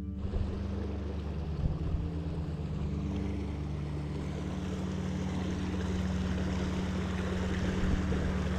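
Steady rushing noise over a held low music drone.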